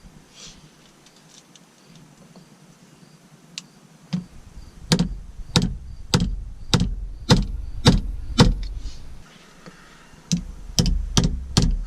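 Sharp taps on a wooden paint stick held over a shift-knob adapter, press-fitting it onto an automatic transmission's shifter shaft. After a quiet start come seven evenly spaced knocks, a little under two a second, a pause, then four quicker knocks near the end.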